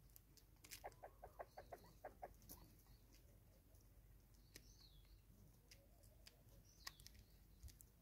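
Natal spurfowl giving a quick run of soft, short clucks about a second in, about six a second. A few brief high, falling chirps from a small bird come later.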